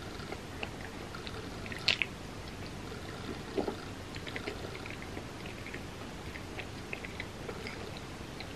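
Close-miked mouth sounds of someone eating a soft cinnamon roll topped with chocolate chips: quiet wet chewing clicks and smacks, with one sharper click about two seconds in and a short low mouth sound a little later.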